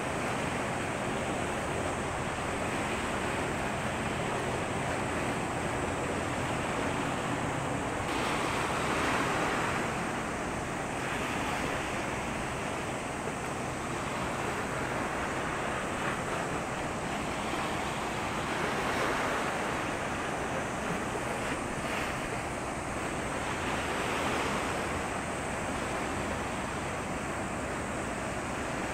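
Seawater washing and surging against the shore, swelling every few seconds over a steady rush of wind on the microphone. A faint steady low hum runs underneath.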